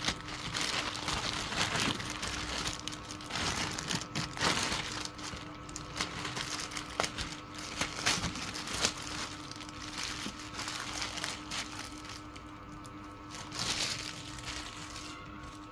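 Irregular crinkling and rustling handling noises with occasional sharp clicks, over a steady low hum.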